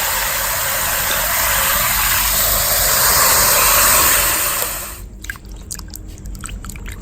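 Water running in a steady, hissing stream, which stops about five seconds in, followed by light clicks and drips.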